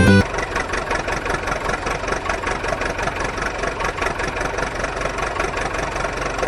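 Engine idling with a rapid, even knocking beat, cutting in suddenly and cutting off just after.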